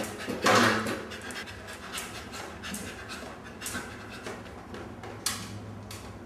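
A dog panting in quick, short breaths, after a louder noisy burst about half a second in.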